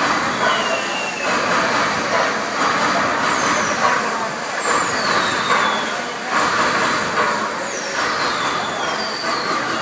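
The light show's soundtrack over loudspeakers: swelling whooshes of hissing noise with high, falling whistle tones about every second, over a murmuring crowd.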